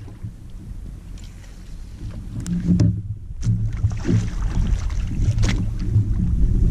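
Wind rumbling on a body-worn microphone aboard a plastic kayak, with several short sharp knocks and clicks from the paddle and fishing rod being handled.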